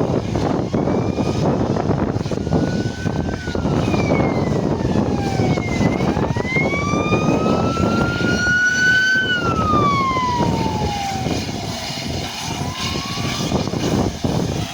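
Three-cylinder steam locomotive 60163 Tornado, an A1 Peppercorn Pacific, working hard as it pulls away with its train: a continuous rush of exhaust and running noise. Over it a high ringing tone slides slowly up and down, climbing to its highest point past the middle and then falling away.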